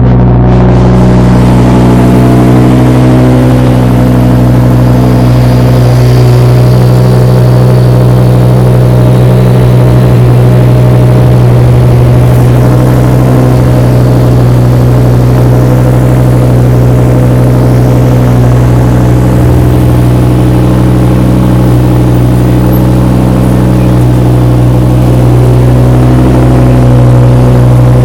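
Ford Focus RS turbocharged 2.5-litre five-cylinder idling steadily and loud through an aftermarket exhaust: a 3-inch stainless downpipe and piping, a Borla XR1 muffler and a stainless Y-pipe into the original tips.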